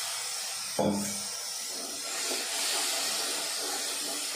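Spice masala in hot oil sizzling in a kadai just after water has been added, while a wooden spatula stirs and scrapes the pan; there is a thump about a second in.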